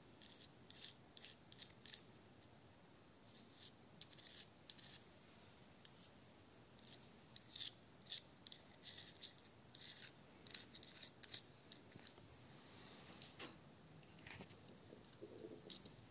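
Quick, irregular, light metallic clicks and scrapes as a screwdriver tip works the brass ball cage of a small ball bearing held in the fingers, the balls and cage shifting. The clicks are faint, with the sharpest ones about seven to eight seconds in.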